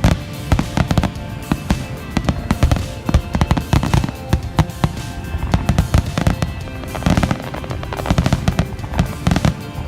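Fireworks going off in rapid succession, many sharp bangs and crackles, over background music.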